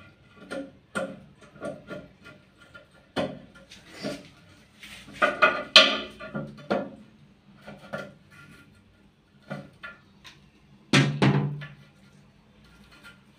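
Irregular knocks, clicks and clatter of plastic flush-valve parts against a ceramic toilet cistern as they are handled, the cistern being worked on to stop a leak. A louder burst of clatter comes around the middle and a heavy knock near the end.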